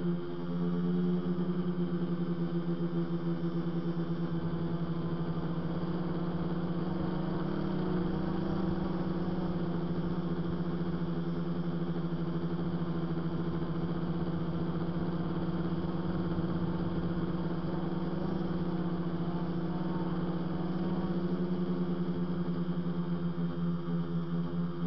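Steady, high hum of a tricopter's electric motors and propellers in flight, holding close to one pitch. The hum flutters near the start and again near the end.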